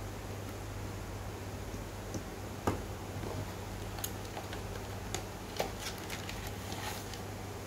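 Scattered light clicks and taps as a spinning reel, its handle and its cardboard box are handled, with the loudest knock about a third of the way in and a quick run of clicks near the end, over a steady low hum.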